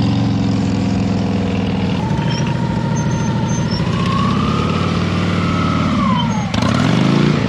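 A Harley-Davidson V-twin motorcycle engine running at low revs during slow-speed riding. For a few seconds in the middle a higher whine rises and then falls. Near the end the engine revs up and gets louder.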